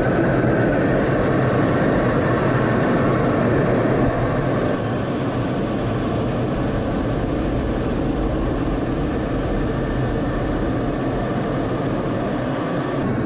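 Fighter jet engine running steadily, a dense even rush with faint steady tones in it; the level drops slightly about five seconds in.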